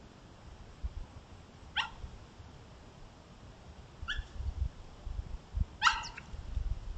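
Coyote giving three short, high-pitched barks about two seconds apart, the last the loudest: a territorial call toward a coyote from another pack.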